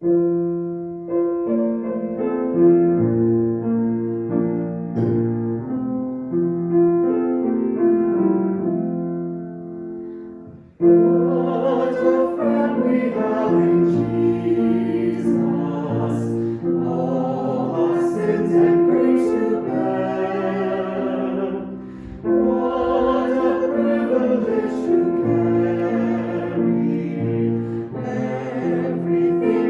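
Hymn: about ten seconds of piano introduction in held chords, then voices come in singing the hymn with piano accompaniment.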